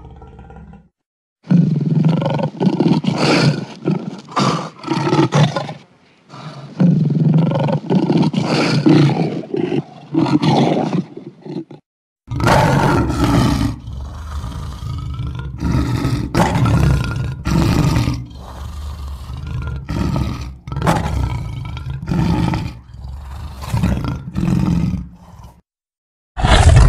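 Reptilian creature sound effects: growling roars played one after another, two long stretches of several seconds each, then a quicker run of shorter roars and snarls, with brief silent gaps between clips and one short loud call near the end.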